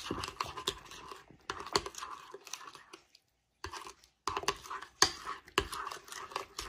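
A spoon stirring thick curd thinned with water in a bowl: repeated scraping and sharp clicks of the spoon against the bowl, with two short pauses about halfway through.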